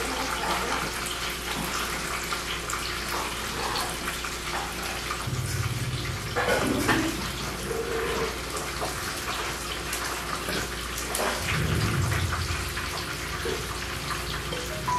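A steady rushing noise like running water, with a few faint clicks and two short low hums, one about a third of the way in and one near the end.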